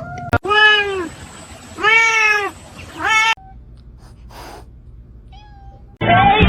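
A domestic cat meowing three times: two long meows that rise and then fall in pitch, followed by a shorter one. Music starts near the end.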